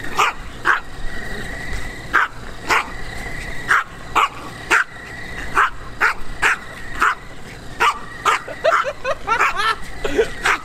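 Small dog yipping and barking excitedly as it chases a remote-control toy car. The short, sharp barks come about one or two a second and crowd together near the end.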